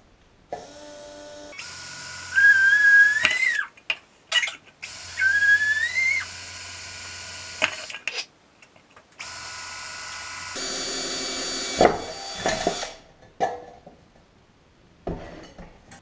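Cordless drill boring holes in thin sheet metal, running in several bursts of a few seconds each, with a whistling tone that rises as the bit cuts through.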